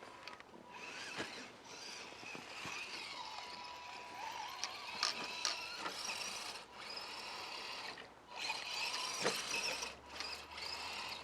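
Axial SCX10 RC crawler's electric motor and gear drivetrain whining as it is driven in bursts of throttle, with scattered clicks and knocks; the whine drops out briefly a few times as the throttle is let off.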